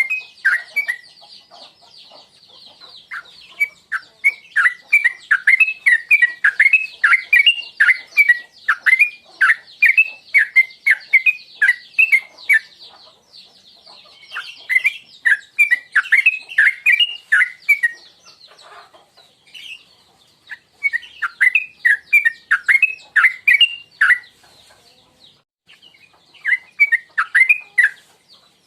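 Yellow-vented bulbul (trucukan) singing quick bubbly runs of chirped notes in bouts with short pauses between them, over a faint steady high hiss. The song is a lure call used to get caged birds singing.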